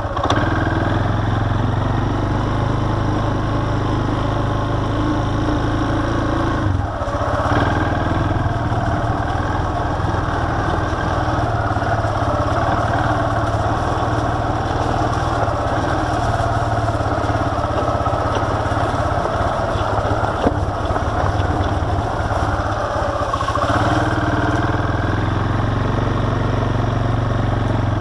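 ATV engine running steadily as it rides a dirt trail. Its note drops briefly and picks up again about a quarter of the way in, and shifts again near the end, with a single sharp knock a little past two-thirds of the way through.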